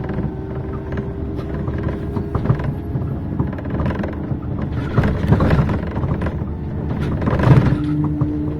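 Inside a moving city bus: engine and road rumble with rattles and knocks from the cabin. Near the end a steady low engine hum comes in.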